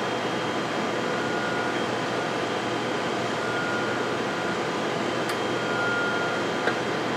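Steady machine hum and hiss of lab room background noise, with a faint high tone that comes and goes about every two seconds.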